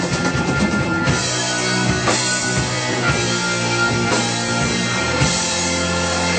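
Live rock band playing an instrumental passage: electric guitars and bass over a drum kit, with a strong drum hit roughly once a second. About five seconds in the drum hits drop away, leaving held guitar and bass notes ringing.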